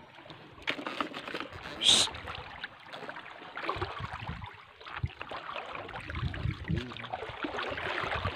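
Shallow tide-pool water sloshing and splashing with footsteps and small scrapes over rough reef rock. There is a louder burst of noise about two seconds in, and a low rumble near the end.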